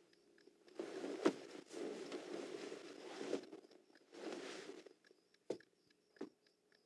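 Bedclothes rustling as a person shifts and climbs off a bed, then two soft footsteps on a wooden floor near the end.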